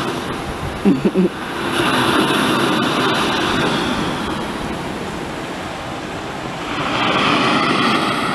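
Steady rushing outdoor background noise that swells twice, with three short low calls in quick succession about a second in.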